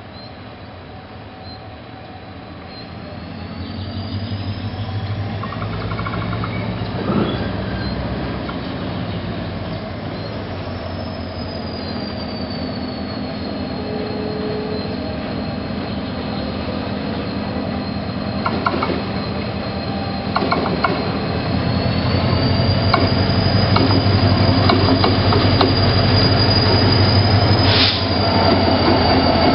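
TCDD DE 33000-class (GM G26CW) diesel-electric locomotive approaching slowly and passing close by, its diesel engine growing louder toward the end. A thin, high wheel squeal glides up and down, with a few sharp knocks of wheels over the rails.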